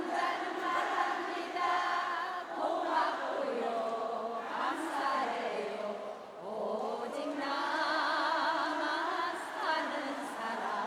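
A large concert audience singing a song's chorus together in unison, with no instruments clearly heard.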